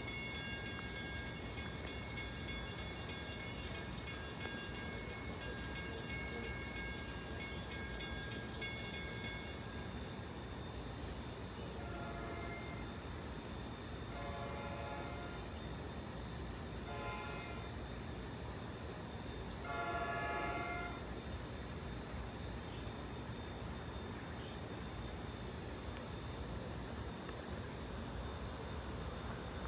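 Distant train horn sounding the grade-crossing signal, two long blasts, one short and one long, starting about twelve seconds in, with the last blast the loudest as the train approaches. Before that a crossing bell rings in fast even strokes and stops about nine seconds in, and insects chirp steadily throughout.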